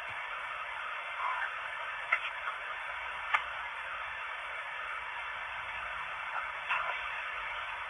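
Steady hiss from a Sony ICD-ST10 voice recorder playing back a recording through its small built-in speaker, with a couple of sharp clicks in the middle. Near the end comes a brief faint blip that the recordist takes for a spirit's spoken reply to his question.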